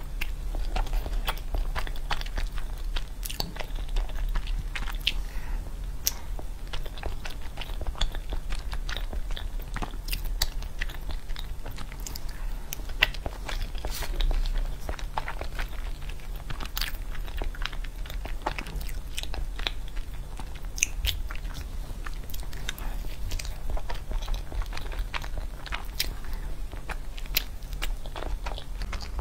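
Close-miked eating of soft chocolate cream cake rolls: chewing with many small wet clicks and lip smacks. A low steady hum sits underneath.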